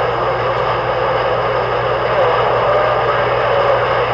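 CB radio receiver putting out steady static hiss with faint, garbled voices wavering under it.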